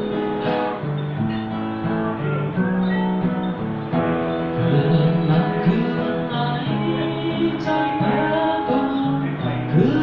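Live acoustic guitar music: a steel-string acoustic guitar played, strummed and picked, by a solo performer.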